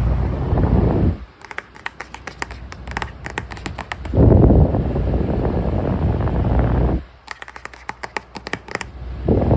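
Electric circulator fan blowing air straight at the microphone with a steady rush. The rush cuts off abruptly twice, for about three seconds and then about two, and rapid light clicking is heard in each gap before the airflow comes back.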